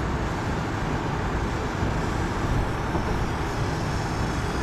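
Steady road noise of a car driving through a road tunnel, heard from inside the cabin: a continuous low rumble of tyres and engine with passing traffic.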